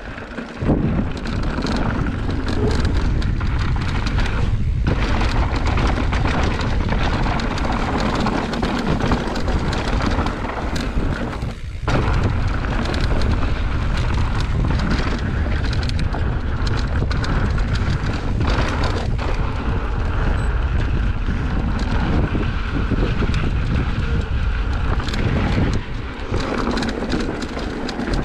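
Riding noise from an electric mountain bike descending a rocky trail: wind buffeting the action camera's microphone over a steady rumble, with the bike's rattles and knocks from rocks and drops throughout.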